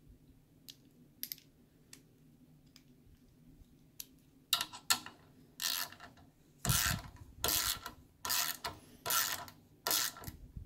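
Milwaukee quarter-inch drive ratchet with a fine 90-tooth gear. A few light clicks as the socket goes onto the drive, then the handle is swung back and forth: about eight short, fast ratcheting buzzes, each about half a second long.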